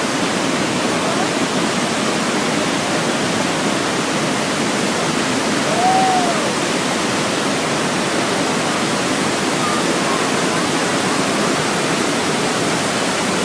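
Iguaçu Falls: a very large waterfall's steady, dense rush of falling water. About halfway through, a short rising-and-falling sound rises briefly above it.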